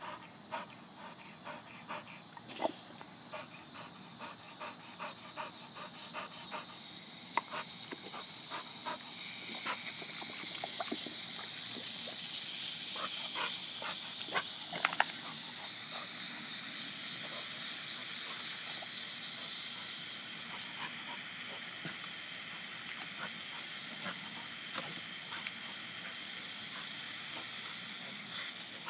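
Water hissing from a garden hose spray nozzle, growing louder over the first ten seconds or so and then holding steady, over a dog's rapid panting.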